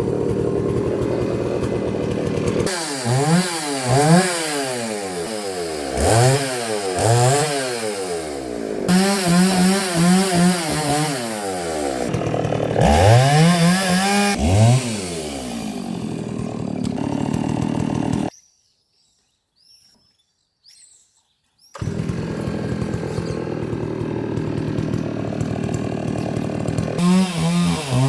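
Chainsaw idling, then revved up and down again and again. The sound drops out completely for about three seconds about two-thirds through, then the saw idles and revs again near the end.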